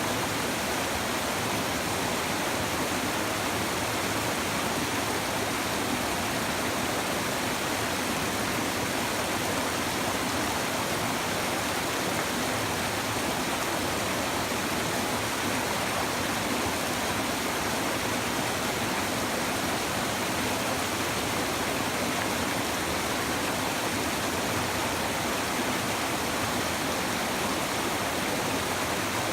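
A shallow river babbling and rushing over stones, a steady, even flow of water.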